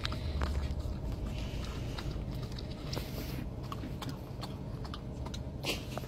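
A dog licking whipped cream from a paper cup and smacking its lips: quick, scattered wet clicks over a low, steady rumble.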